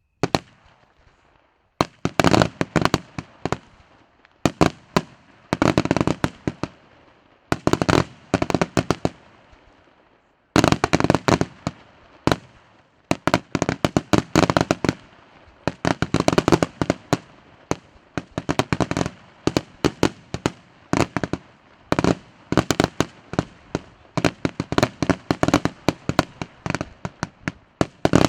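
Aerial fireworks display going off in rapid volleys: dense clusters of sharp bangs and crackles, each about a second long, coming every second or two.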